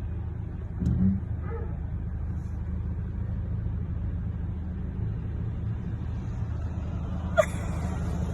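Steady low rumble of a car, as heard from inside the vehicle, with a brief louder sound about a second in and a single sharp click about seven seconds in.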